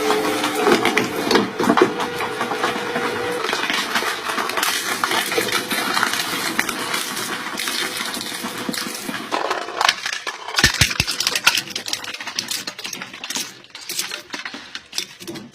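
A crushing machine breaking up objects: dense crackling and clattering of material cracking and breaking. It thins out to scattered cracks after about ten seconds, with a few low thuds.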